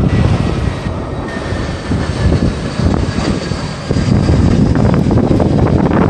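A Boeing 767 taxiing close by, its jet engines giving a thin, steady whine that sinks slowly in pitch. Heavy wind buffeting on the microphone makes a choppy rumble that is the loudest thing.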